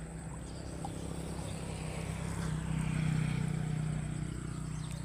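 A motor vehicle's engine hums low and steady, growing louder about three seconds in and then easing off.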